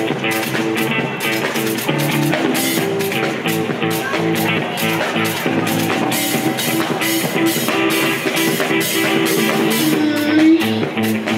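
Live rock band busking: two electric guitars played through small amplifiers over a steady drum beat.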